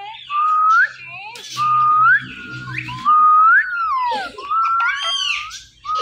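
Indian ringneck parakeet whistling: a run of clear whistled notes, each held on one pitch and then sweeping upward at its end.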